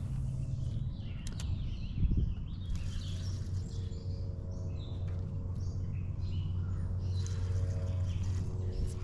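Small birds chirping and calling over a steady low hum, with a single thump about two seconds in.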